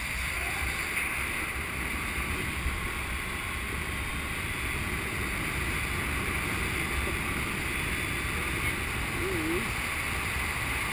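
Steady rush of wind over the camera microphone during a paraglider flight.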